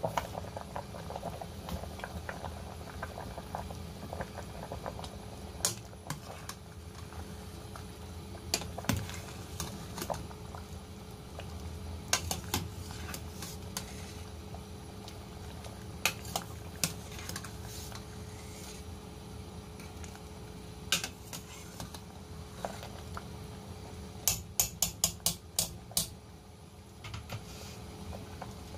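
Soup boiling in a stainless steel pot, a steady bubbling, with a metal ladle clinking against the pot now and then. Near the end there is a quick run of about six clinks.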